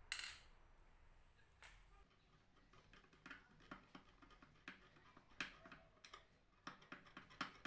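Screwdriver driving the small screw of a metal turn-button catch on a wooden cabinet door, a run of faint, irregular metal clicks and ticks.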